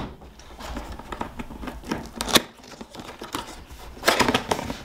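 Cardboard box being handled and opened by hand: scattered scrapes, rustles and light knocks of the cardboard lid and flaps, with a sharp knock at the start and a cluster of rustling about four seconds in.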